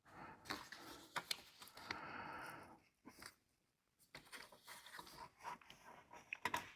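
A seat cover being pulled and jammed over a seat frame's metal lip and hooked on, with faint rustles, scrapes and small clicks. A longer rubbing sound comes about two seconds in.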